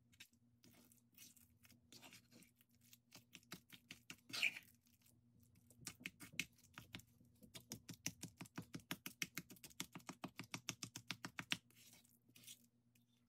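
Spatula stirring and folding chunky mashed avocado in a stone mortar: faint wet squishing and scraping strokes. About halfway through these settle into a fast, even rhythm of about five strokes a second.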